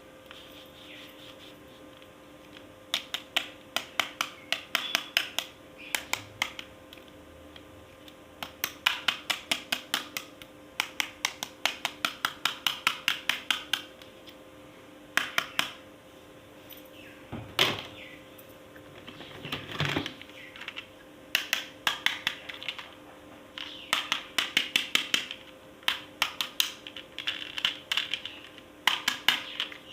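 Plastic toy clicking rapidly in repeated runs of a second or two, about ten clicks a second, with a couple of louder single knocks near the middle, over a faint steady hum.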